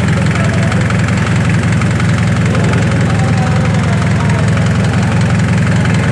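An engine idling steadily, a constant low hum with no change in speed.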